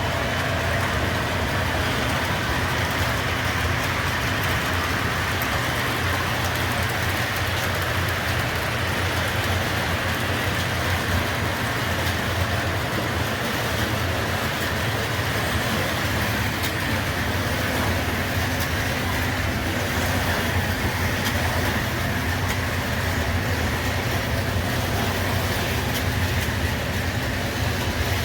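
O gauge MTH model diesel locomotive running on the layout, its Protosound speaker playing a steady diesel engine drone over the even running noise of the train on the track.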